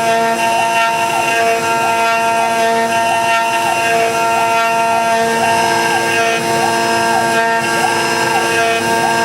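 CNC router running, carving a neck from hard, dense karri: a steady machine whine of several held tones, with a tone that repeatedly glides up and down between two pitches roughly every half second to second.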